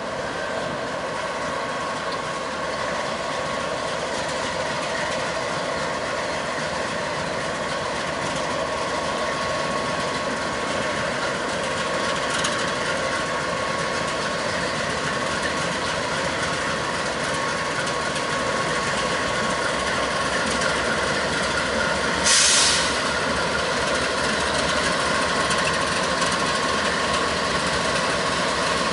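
Diesel freight locomotives rolling slowly past, with a steady engine drone and a constant whine that grow slightly louder as they approach. A short hiss comes about two-thirds of the way through.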